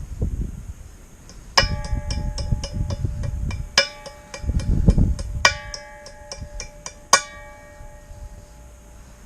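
Hammer tapping steel on a driveshaft yoke while a new universal joint's caps are seated, in a quick run of about four taps a second with four harder blows. Each blow leaves the steel ringing.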